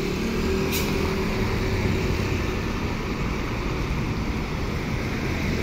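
Diesel engine of an intercity coach running at low revs as the bus pulls slowly away, a steady low hum over road noise.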